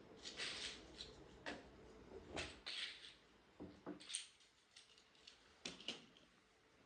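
Plastic Lego bricks being handled and snapped together: irregular light clicks and short plastic rattles, about half a dozen over several seconds.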